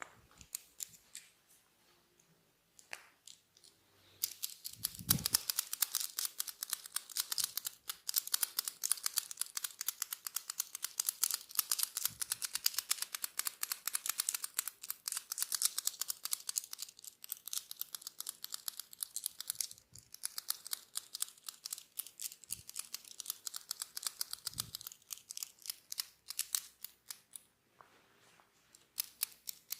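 Dense crackling clicks, many a second, close to the microphone, from hands working through hair. They start about four seconds in and thin out near the end, with a few soft low thumps among them.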